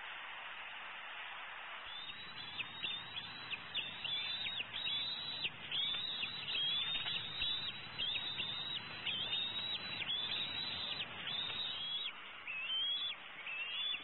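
Bald eagle chattering: a long run of high, piping notes, several a second, starting about two seconds in and thinning out near the end, over a steady hiss from the camera microphone.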